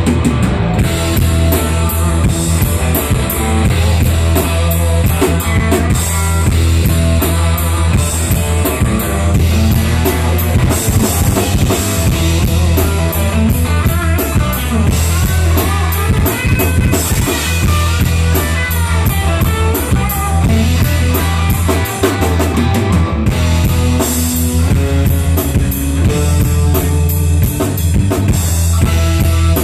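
Live rock band playing loud: two electric guitars, bass guitar and a drum kit.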